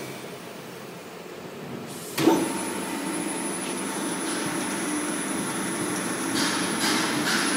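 A log peeling machine of a plywood line starts up about two seconds in with a sharp clunk, then runs with a steady motor hum and a thin high whine. Rough bursts of noise come in near the end as it works the log.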